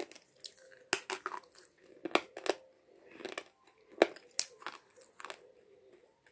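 Slate pencil being crunched and chewed between the teeth with the mouth closed: sharp, irregular crunches about once or twice a second, with softer grinding between.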